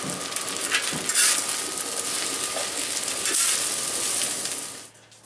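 Lo mein noodles sizzling in a discada (cowboy wok) while metal utensils scrape and clank against the pan as they are stirred and tossed. The noise cuts off near the end.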